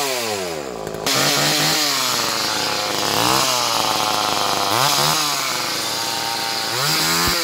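Old Poulan two-stroke chainsaw running with its carburetor cover off. The throttle is blipped over and over, so the engine speed climbs and drops several times.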